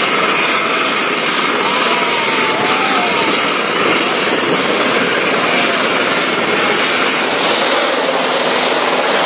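Helicopter running at lift-off power: a loud, steady rush of turbine and rotor noise that cuts in abruptly.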